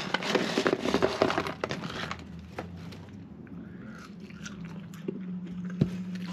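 Paper food packaging rustling and crinkling while fries are handled, then close-up chewing of McDonald's french fries with soft crunches and mouth clicks.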